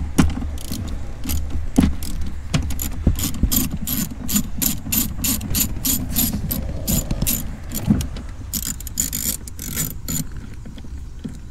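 Hand ratchet clicking in repeated runs, about four clicks a second with a denser run near the end, as it loosens the nuts holding the accelerator pedal assembly to the firewall.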